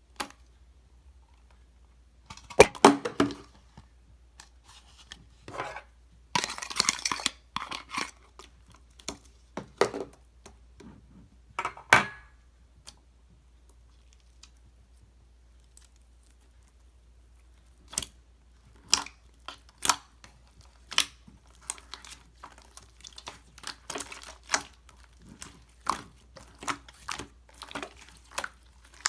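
Slime shaped as tteokbokki and gimbap being handled by hand, giving short sticky clicks and squishes. A few longer, louder bursts come in the first half, then short clicks follow about once a second in the second half.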